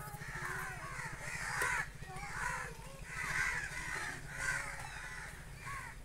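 Crows cawing, several short calls in bursts, over a low steady hum.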